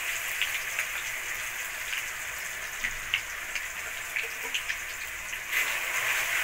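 Onion, ginger, garlic and chilli paste sizzling in hot mustard oil in a kadai, a steady hiss with scattered pops and crackles. The sizzle grows louder near the end as a spatula starts stirring the paste.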